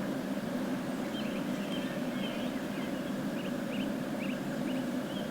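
Small songbirds calling in short, separate chirping notes, one or two a second, over a steady low hum.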